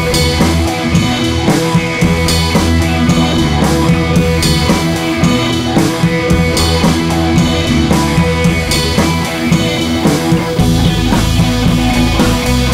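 Background rock music with drums and guitar and a steady beat.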